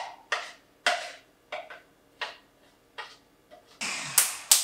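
Blender jar being tapped and knocked to shake thick smoothie out: a run of sharp taps about every two-thirds of a second, then a louder clatter near the end.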